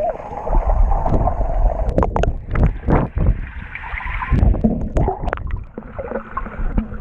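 Muffled underwater sloshing and rumbling of people moving and kicking in a swimming pool, picked up by a camera held underwater, with many irregular sharp knocks and taps.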